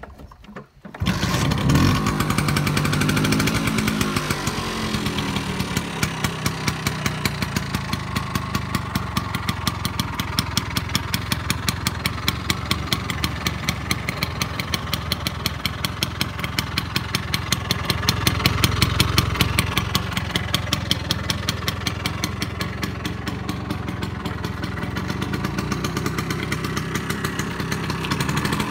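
Vespa 50 Special's two-stroke single-cylinder engine, fitted with a Polini 85 cc kit, starting about a second in and revving up briefly. It then runs steadily with a rapid, even beat, growing louder for a couple of seconds past the middle.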